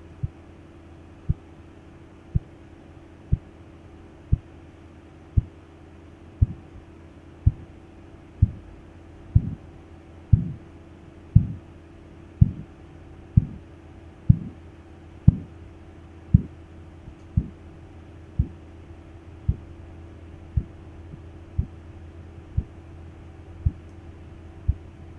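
Korotkoff sounds from the arm's artery as the blood pressure cuff deflates: a short thudding tap about once a second, over a steady low hum. The taps start faint, grow louder with a brief swish after several beats about a third of the way in, are loudest a little past the middle, then turn softer for the rest.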